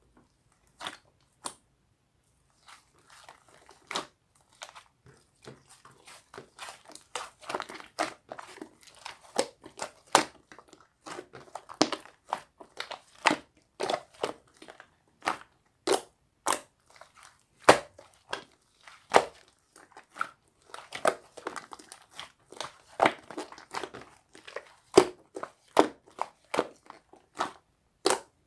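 Slime being squished and stretched by hand, making irregular sharp clicks and pops, a few a second, with crackling between them.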